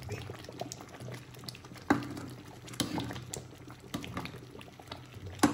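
Thick rice porridge with chicken bubbling at the boil in a large pot while a ladle stirs through it, with scattered short pops and knocks, the sharpest about two seconds in.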